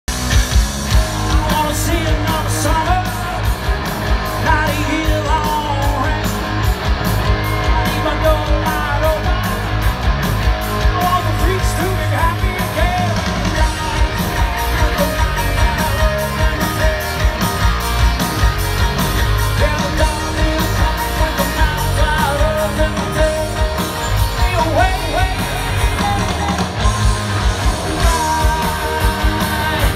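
Live rock band playing amplified through a PA: electric guitars, bass, keyboard and drums with a steady beat, and a singer's voice, heard from the crowd in front of the stage.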